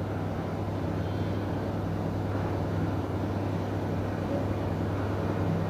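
Steady low background hum with a faint hiss over it, unchanging and without ticks or beats.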